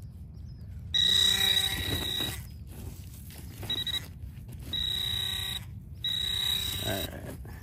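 Handheld metal-detecting pinpointer probe sounding its high, steady buzzing alert in four bursts, one of them short, as it is poked through wood chips. The alert signals metal close to its tip, here a buried penny.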